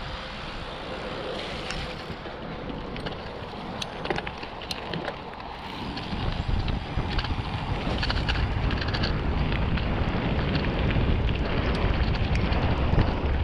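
Mountain bike being ridden along a trail: tyre and wind noise on the camera microphone, with scattered sharp clicks and rattles from the bike. The wind rumble grows stronger about halfway through.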